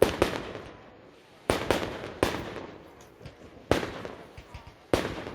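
Aerial fireworks shells bursting: about seven sharp bangs, some in quick pairs, each trailing off in a fading echo.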